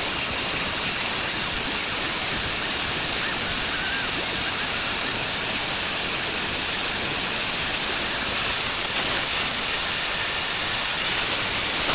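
Shop vacuum running steadily, its hose sucking up metal filings from carpet.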